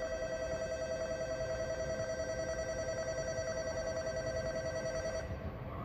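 Shinkansen station train-approach warning bell ringing from a platform loudspeaker: a rapid, steady electric-bell ringing that stops about five seconds in. It signals that a train is about to come through the station.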